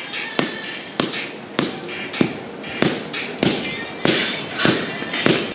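Sharp taps repeating at an even pace, about ten of them, a little under two a second.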